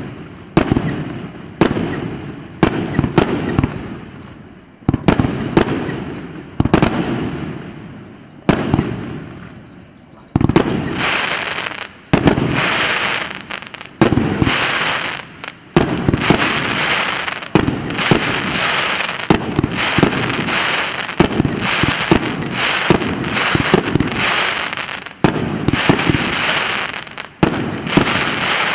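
100-shot, 1.5-inch consumer fireworks battery (cake) firing in rapid sequence: sharp launch reports and bursts, one or two a second. From about a third of the way in, dense crackling fills the gaps between them.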